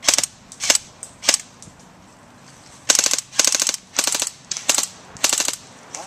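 Airsoft electric rifle (AEG) firing: three single shots about half a second apart, then, after a short pause, five quick bursts of rapid fire.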